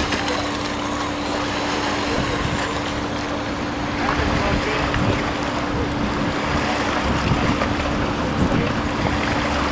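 A RIB's outboard motor running steadily with one constant hum as the boat sits on its trailer in the water, its propeller churning the water at the stern. Wind buffets the microphone. The sound gets a little louder about four seconds in.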